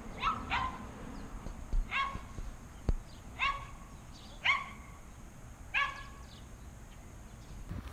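A dog giving about six short, high-pitched yelps, roughly one a second, each dropping in pitch at its start: an excited dog fixed on another puppy.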